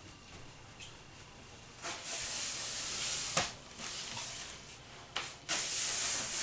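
Aerosol hair spray can hissing in several bursts as it is sprayed onto the hair, the longest lasting about a second and a half.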